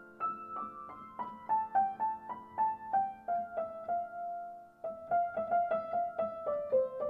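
Background piano music: a melody of single notes, about three a second, stepping mostly downward over held lower notes, with one longer note near the middle before a quicker run of notes.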